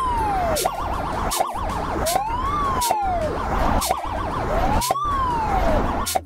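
Police siren sound effect: a slow rising-and-falling wail alternating with a fast warbling yelp, giving three full wails. Sharp hits land about once a second underneath.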